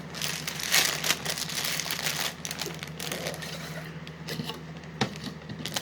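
Plastic cereal-box liner bag crinkling and rustling in irregular bursts as it is handled, with a sharp click about five seconds in.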